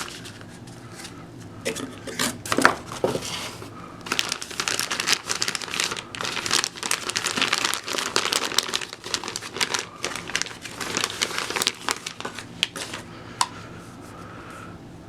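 Packaging being handled and unwrapped during a tool unboxing: a few sharp clicks and knocks, then a long stretch of dense crinkly rustling that dies down about two and a half seconds before the end.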